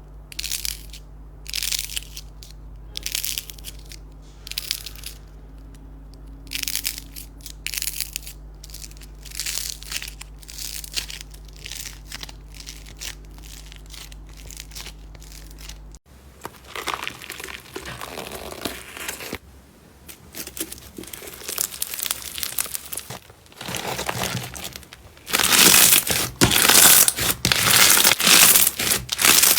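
Slime being pressed and squeezed, giving separate crackling squishes about once a second, then a denser run of continuous crackling that grows much louder near the end.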